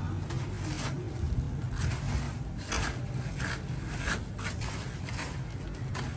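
A series of short scrapes and rustles, under a second apart, over a steady low hum.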